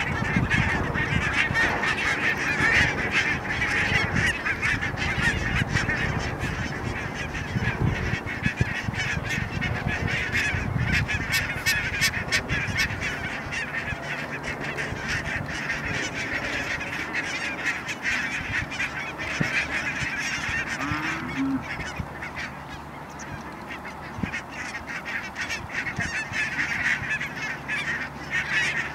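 A large flock of barnacle geese calling continuously, a dense chatter of many overlapping honks.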